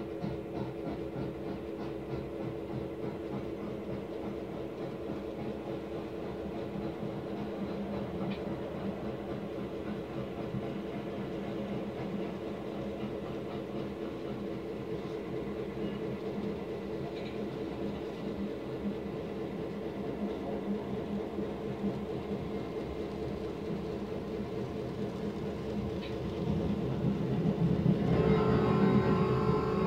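N-scale model diesel locomotives running on the layout track: a steady, wavering whir from the small motors and wheels. About two seconds before the end, louder plucked-string music comes in over it.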